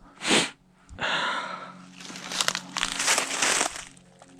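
Crunching and rustling of dry leaves and brush underfoot as someone moves through the woods, in several bursts, the longest near the middle.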